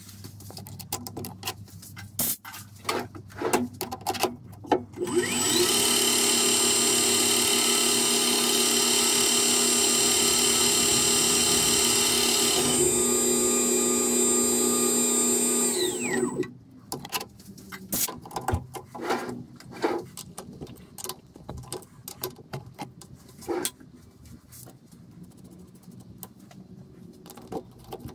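Metal lathe's motor starting about five seconds in, running steadily for about eleven seconds with a slight change in tone partway, then spinning down. Before and after it come scattered clicks and knocks of tooling being handled at the toolpost.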